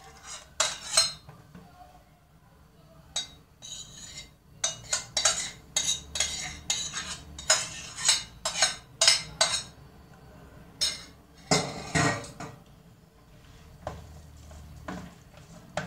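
Metal spoon scraping and clinking against a stainless steel saucepan as thick tomato and pepper paste sauce is scooped out of it, a long run of sharp clinks.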